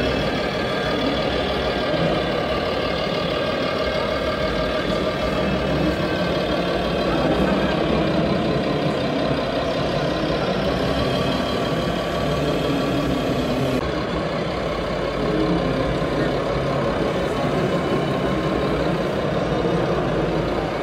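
Radio-controlled scale model trucks running with simulated diesel truck engine sound from their onboard sound modules, steady throughout, over a constant background din.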